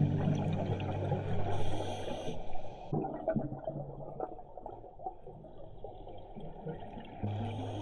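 Underwater sound of a scuba diver's breathing: a short hiss through the regulator, then exhaled bubbles rumbling and gurgling. Background music fades out at the start and comes back in near the end.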